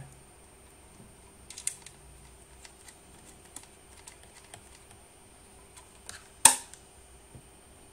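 Scattered light clicks and taps as a 3G/4G antenna is handled and fitted to a router, with one sharp, much louder click about six and a half seconds in.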